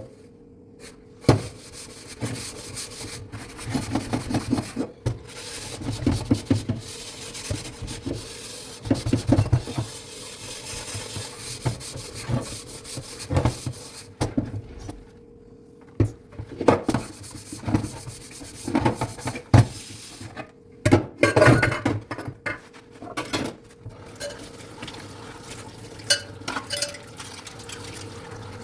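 Dishes being scrubbed by hand, in irregular bursts of rubbing strokes, with sharp knocks of dishware now and then.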